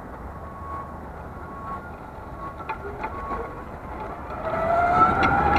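Electric mobility scooter driving over a rough gravel lot: a steady rumble of tyres and wind with a faint motor whine and a few clicks. In the last second or so the whine gets louder and climbs steadily in pitch as the scooter speeds up.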